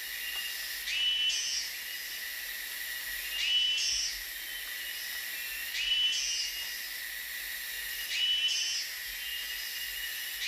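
Tropical rainforest ambience: a steady high insect drone, with a call that repeats about every two and a half seconds, each starting with a short rise in pitch.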